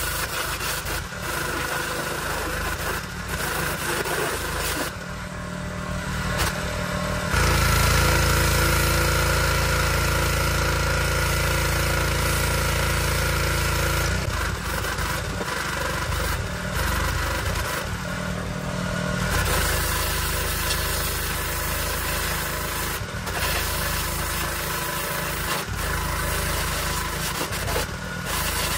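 Pressure washer running, its water jet blasting grime off a barbecue grill, with a steady motor hum under the hiss of the spray. For about seven seconds in the middle the sound is louder and steadier.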